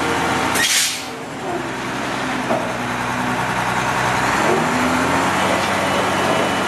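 Cummins ISC 8.3-litre diesel engine of a 1995 Ford LT8000 mixer truck running steadily, with a short burst of hiss under a second in.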